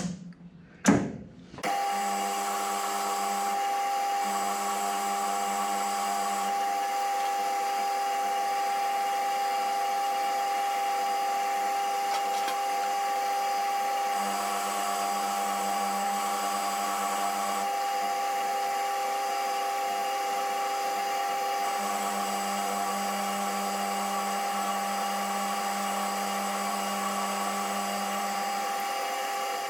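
Metal lathe running while parting off a small 4140 steel workpiece: a couple of knocks, then the machine starts about two seconds in and runs with a steady whine, a lower hum coming and going four times, and stops abruptly at the end.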